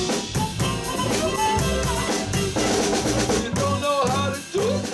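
Live blues band playing between sung lines: a drum kit keeping a steady beat on snare and kick with rimshots, electric bass, and a melodic lead line over the top.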